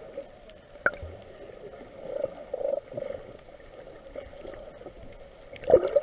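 Muffled underwater noise heard by a camera held below the surface: water gurgling and swirling with scattered small clicks, a sharp click about a second in and a louder knock near the end.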